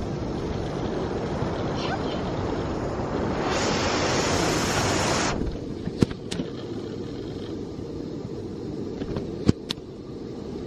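Rushing river water over rapids: a steady noise that is louder for the first five seconds or so, then drops away. A few sharp clicks sound in the second half.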